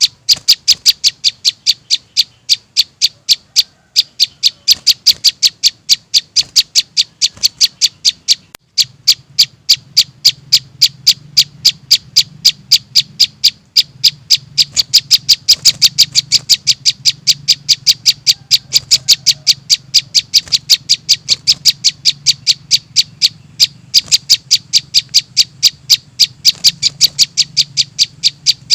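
Young prinias' (prenjak) begging calls played as a bird-lure recording: sharp, high chirps repeated evenly at about four a second. A low steady hum runs underneath from about nine seconds in.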